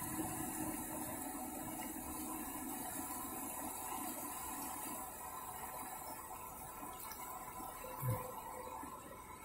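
River water flowing and rushing over rocks in a shallow rapid, a steady rushing sound. A brief low thump about eight seconds in.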